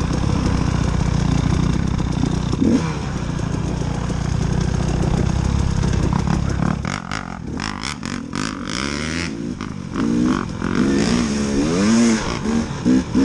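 KTM 300 two-stroke dirt bike engine under way. It runs steadily at first, goes choppy and uneven for a couple of seconds around the middle over rocky ground, then revs up and down repeatedly near the end.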